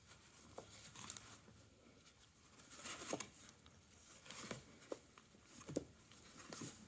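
Cat scrabbling in a cardboard pizza box, her paws and claws scraping and bumping the cardboard in a string of short, irregular scratches as she grabs at a feather wand toy.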